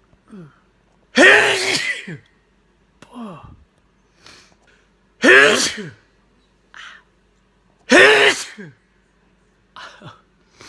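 A person sneezing repeatedly: three loud sneezes, each dropping in pitch, about three seconds apart. Quieter, shorter breathy sounds come between them.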